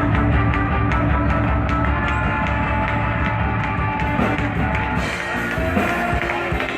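Rock band playing an instrumental passage between sung choruses, with the full band loud and dense. The low end thins out about five seconds in.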